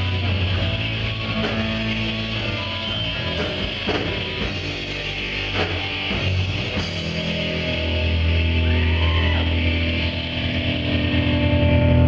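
Live rock band playing electric guitars and a drum kit, with sustained low notes under the guitars and drum hits.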